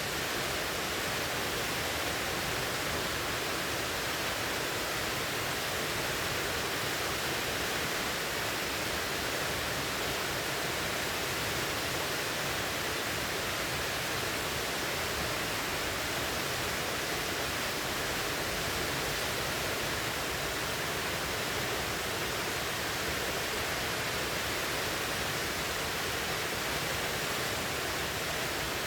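River water rushing steadily over rocks, an even hiss of white water with no change in level.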